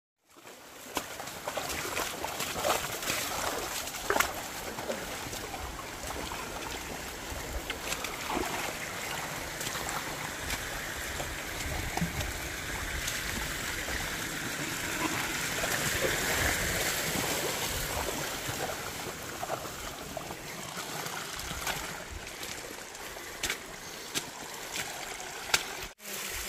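Rainwater running and trickling down a rocky trail, with occasional splashing footsteps through it.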